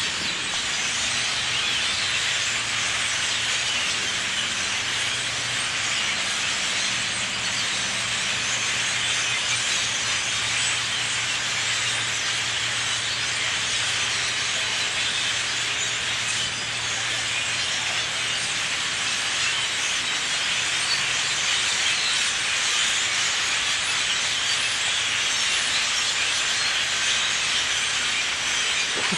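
A huge flock of birds all calling at once: a dense, steady chattering din with no let-up.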